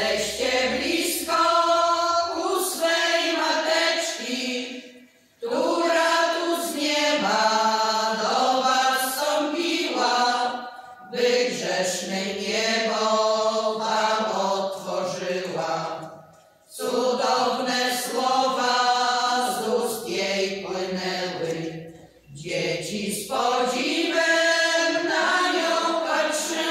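A women's folk singing ensemble of about ten voices singing a cappella, in phrases of about five or six seconds with short pauses for breath between them.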